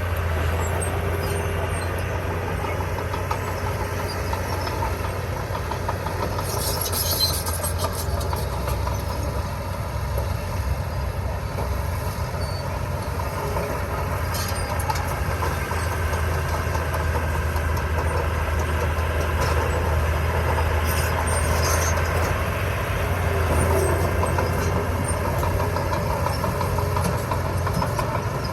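Diesel engine of heavy construction machinery running steadily with a deep, even hum, with a few faint metallic clicks.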